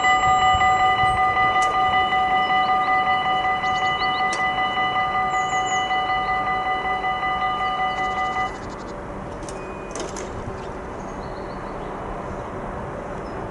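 Level crossing warning bell ringing, a rapidly repeated electronic ding that stops abruptly about eight and a half seconds in, signalling an approaching train. After it, the quieter steady sound of the approaching Arriva Stadler FLIRT electric stopping train.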